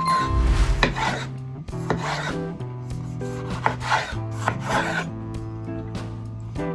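Kitchen knife slicing through tomatoes on a wooden cutting board: several drawn cuts, the blade rubbing and scraping on the wood, over soft background music. A short bright chime sounds at the very start.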